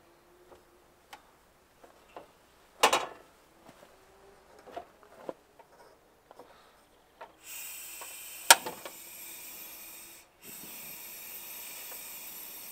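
Clinks and knocks as a portable propane tabletop grill is handled and set up, the loudest a single knock about three seconds in. From about seven seconds in, a steady hiss from the gas burner running, with a sharp click just after it starts and a brief break near ten seconds.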